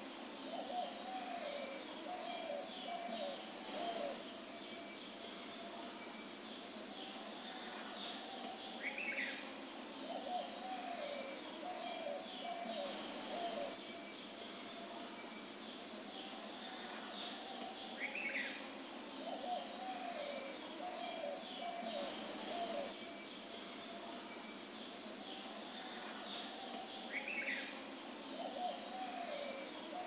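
Birdsong ambience that repeats in a loop: short high chirps about once a second, with a lower call phrase coming back every nine seconds or so, over a steady high-pitched hiss.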